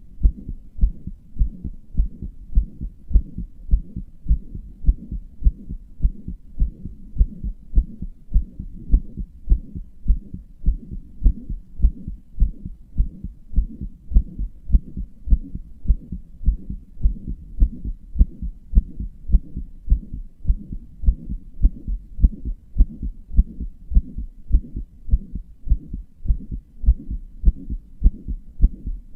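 A human heartbeat: low thuds repeating in a steady, even rhythm. This is a heart that its owner says murmurs and palpitates.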